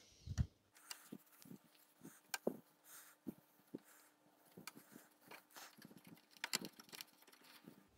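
Faint, scattered small clicks and rustles of a tissue being rubbed over the small plastic pulleys of a CD player's tray mechanism to clean off oily belt residue. The sounds come unevenly, a little more often near the end, over a faint steady hum.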